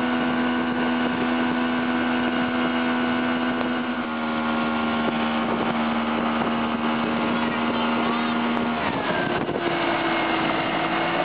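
Motorboat engine running steadily under way towing a tube, with the rush of the wake and wind on the microphone; the engine's pitch rises about two seconds before the end.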